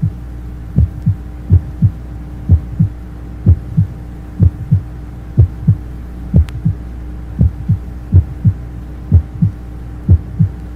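Normal heart sounds of a 25-year-old, heard by stethoscope at the mitral area. A steady lub-dub, the first and second heart sounds coming in pairs about once a second, over a low steady hum.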